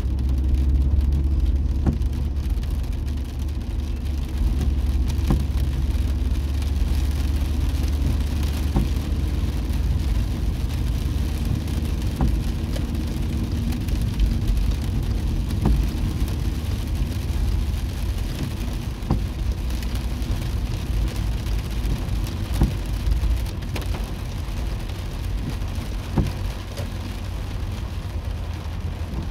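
Rain pattering on a car's roof and windshield, heard from inside the cabin over the steady low rumble of the car and its tyres on the wet road, with scattered louder drops ticking sharply.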